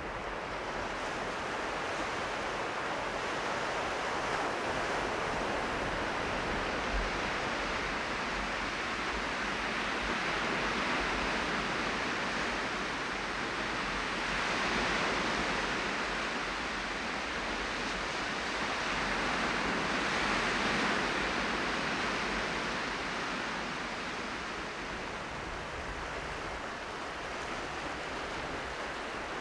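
Sea of Japan surf washing on the shore: a steady rush of waves that swells twice, about halfway through and again a few seconds later.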